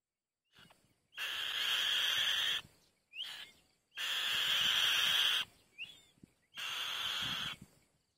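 White-tailed kites calling at the nest: three long raspy, hissing screams of about a second or more each, with short squeaky notes between them.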